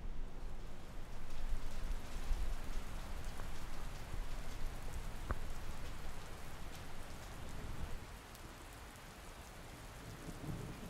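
Steady rain falling, with one sharp click about five seconds in; the rain noise quietens over the last few seconds.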